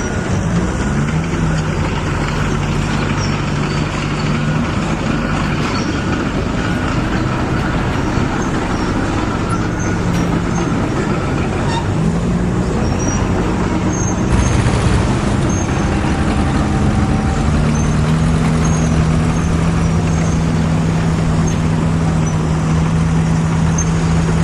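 Steady engine sound from a radio-controlled construction toy running continuously, its low hum stepping up slightly in pitch about halfway through and again near the end.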